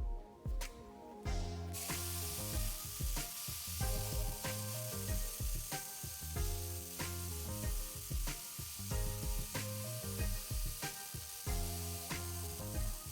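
Background music: a few evenly spaced clicks, then about a second in a full band comes in with a steady beat, bass line and hissy cymbals.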